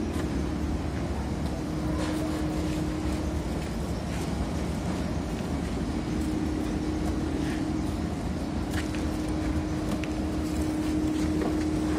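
Steady low rumble with a constant mechanical hum, a few faint knocks here and there.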